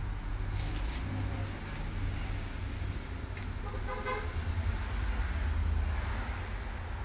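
A door being opened: a click about three and a half seconds in, then a short squeak from its hinges as it swings, over a steady low rumble.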